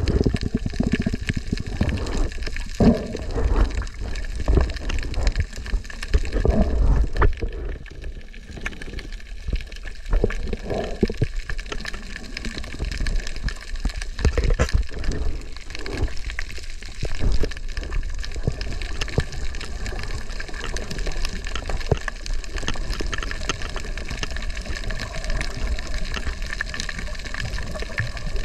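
Underwater ambience through a camera held below the sea surface: a muffled, uneven rush and slosh of water with low rumbles, and scattered faint clicks.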